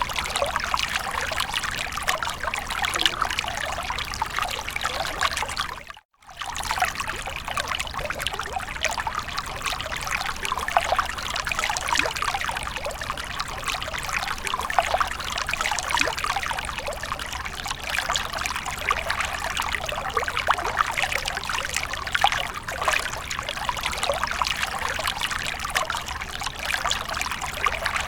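Water from a fountain splashing and trickling steadily. It drops out for a moment about six seconds in, then resumes.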